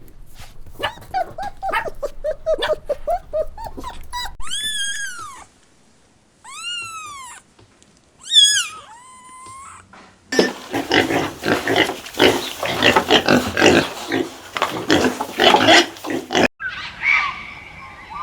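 Pigs grunting in short bursts, then three high squeals that rise and fall, then a long stretch of many pigs squealing and grunting at once. Near the end the sound cuts to a different animal call.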